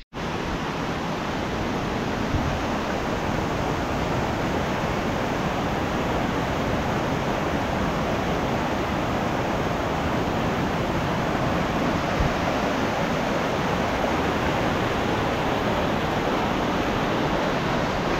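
Mountain stream cascading over boulders, a steady, even rush of water.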